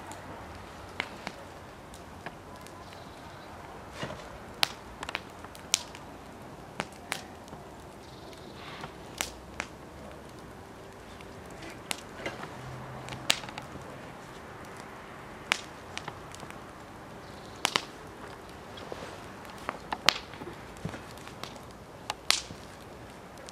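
Small wood fire crackling, with sharp pops at irregular intervals, some of them loud.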